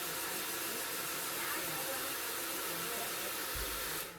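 A steady, loud hiss like rushing air, with faint voices beneath it, cutting off abruptly near the end.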